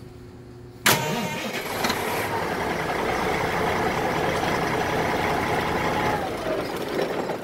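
The fire engine's Caterpillar 3406C 14.6-litre diesel is cranked on a lithium jump pack. It fires about a second in and runs steadily, then is shut off and winds down near the end.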